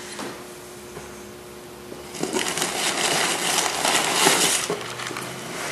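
Crumpled packing paper rustling and crinkling as a hand digs through it in a cardboard shipping box. The crinkling starts about two seconds in and eases off near the end.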